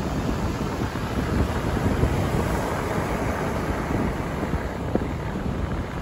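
Rough surf from a typhoon swell breaking and washing up a gravel beach, with wind buffeting the microphone in a low, gusty rumble.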